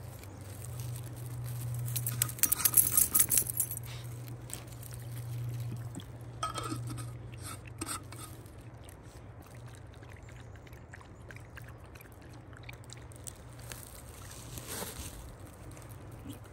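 Small dog lapping water from a collapsible silicone bowl: a quick run of wet laps about two seconds in, then softer scattered laps, over a steady low hum.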